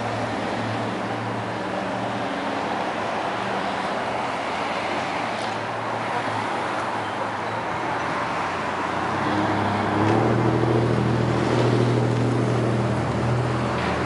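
Car engine running steadily with a low hum over road-like noise, getting louder about ten seconds in.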